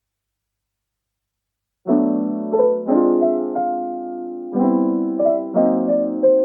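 Dead silence for about two seconds, then gentle piano background music begins, with chords struck every second or so.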